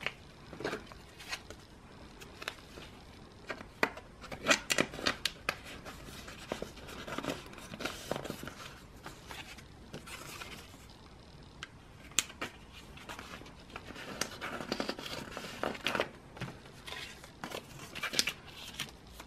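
Plastic card sleeves and binder pocket pages crinkling and rustling as photocards are slid in, with irregular light clicks and taps.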